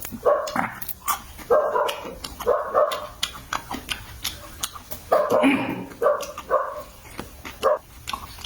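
A dog barking in short repeated bursts, several barks in quick clusters with brief pauses between them.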